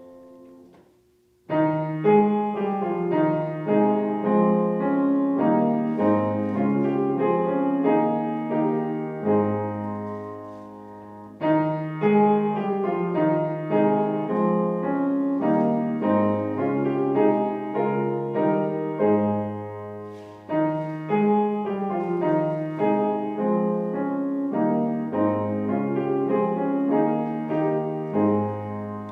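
Solo piano playing a slow, chordal hymn-like instrumental. It enters about a second and a half in after a short hush, with new phrases starting near the middle and again about two-thirds through.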